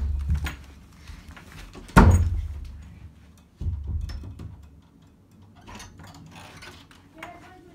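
A heavy thud against a closed interior door about two seconds in, then quieter low knocks and faint clicks as the door's lever handle is worked.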